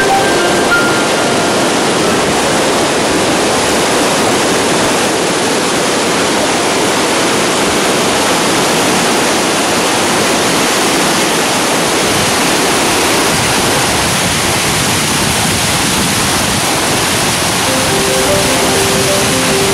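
Large waterfall pouring over rock into a churning pool: a loud, steady rush of water. A few held musical notes sound faintly at the start and again near the end.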